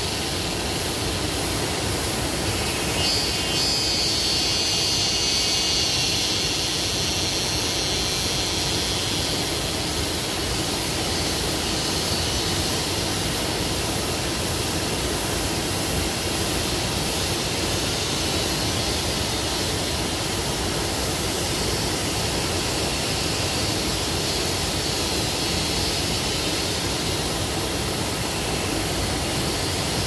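Forest waterfall: a steady, even rush of falling water. A high buzz sits over it, swelling a few seconds in and fading, then returning near the end.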